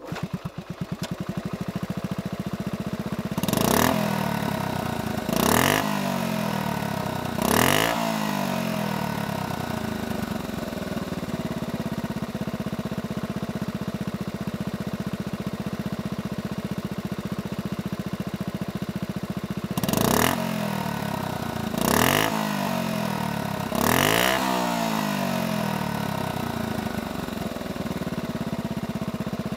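Honda Super Cub C65's small single-cylinder OHC four-stroke engine idling steadily, with the throttle blipped three times in quick succession a few seconds in and three more times about two-thirds of the way through. Each rev rises and falls back to idle within about a second.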